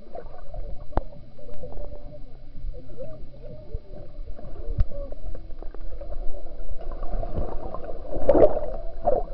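Water and bubbles stirred by swimmers, heard underwater: a muffled churning with small gurgling bubble sounds, and a louder rush of bubbles near the end.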